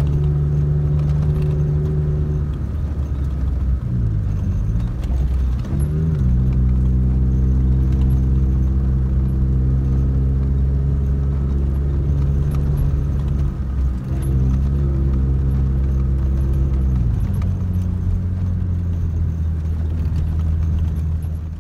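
Toyota Tacoma pickup's engine running under way on a dirt trail, heard from inside the cab as a steady drone. Its pitch dips and climbs again about five seconds in, then settles to a lower note about seventeen seconds in, as with gear or speed changes.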